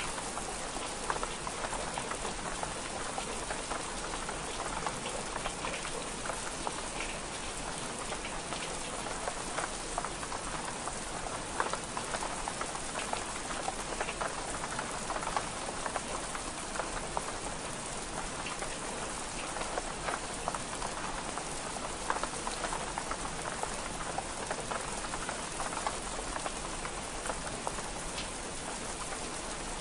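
Steady rain on window glass: an even hiss sprinkled with many small sharp ticks.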